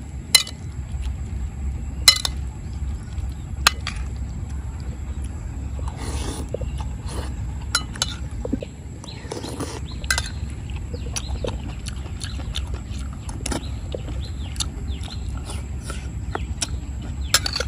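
Metal spoon clinking several times against a ceramic plate during eating, with soft mouth noises of eating soup close to a lapel microphone, over a steady low rumble.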